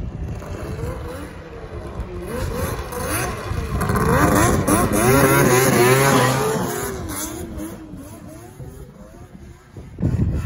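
Yamaha SRX 700 snowmobile's three-cylinder two-stroke engine revving, its pitch rising and falling over and over. It is loudest around the middle, then fades away, and comes back suddenly near the end.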